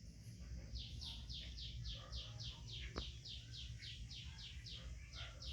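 A bird calling in a fast, even run of short high chirps that each fall in pitch, about six a second, starting about a second in. A single sharp click comes near the middle.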